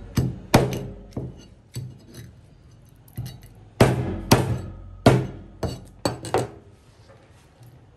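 A cleaver knocking against a thick round cutting board while a whole carp is cut at the belly and fins: about nine sharp, irregular knocks in two bunches, each with a short ringing decay.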